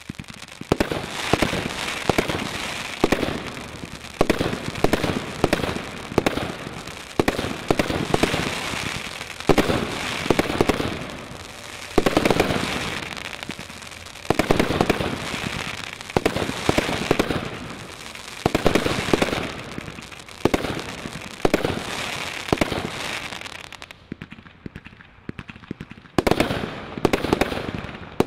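Grand Slam GS2352GB firework firing: a constant crackle with a loud shot about once a second, each one trailing off. A few seconds before the end it eases off briefly, then sharper, quicker bangs begin.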